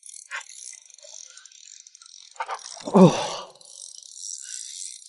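A heavy spinning fishing reel clicking and rattling under load while a large hooked tuna pulls line, over a steady high hiss. A short shout breaks in about three seconds in.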